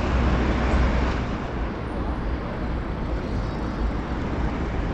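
City street traffic noise: a steady hum of cars and buses on a busy road, with a low rumble that eases after about a second.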